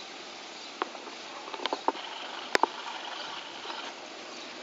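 A few irregular, sharp clicks and knocks over a steady outdoor background hiss: a single one about a second in, a cluster of three a little later, and the loudest pair near the middle.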